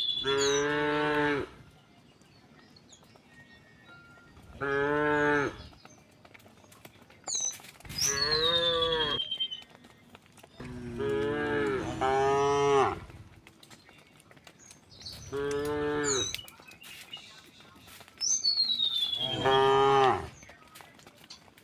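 A herd of cattle mooing repeatedly: long, low calls every two to four seconds, with two cows overlapping at different pitches about halfway through.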